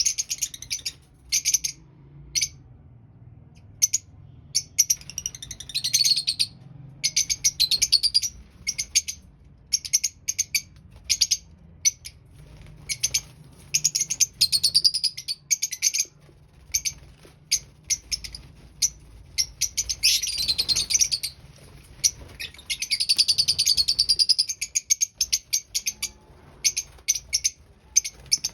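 Young lovebirds chirping: short, sharp, high-pitched calls in quick runs, swelling now and then into a few seconds of continuous chattering.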